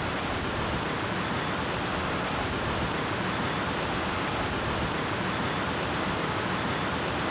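Steady rush of water cascading down the stone walls of a large wall fountain.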